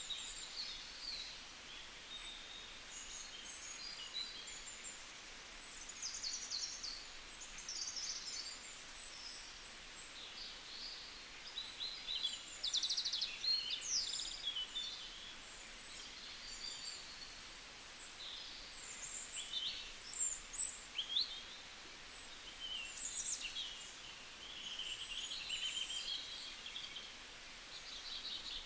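Many small birds chirping and trilling together in a continuous chorus of short, high calls, with a faint steady hiss underneath.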